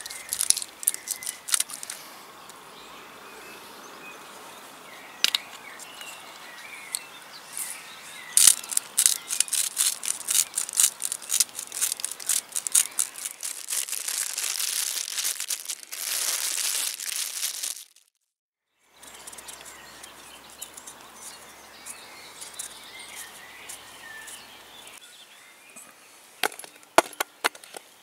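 Hand pepper grinder clicking as it grinds over a raw steak, then plastic wrapping crinkling and rustling as the meat is handled. The sound cuts out for about a second, then birds chirp in the background and a few sharp knocks come near the end as potato pieces are cut into an aluminium pot.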